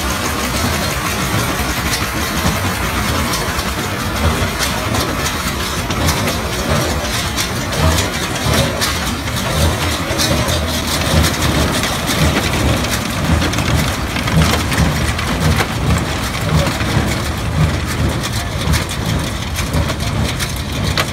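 Belarus tractor engine running under load while driving a Kyrgyzstan pick-up square baler, which clatters as its pickup tines and plunger pack hay into bales, with repeated low thuds from the pressing.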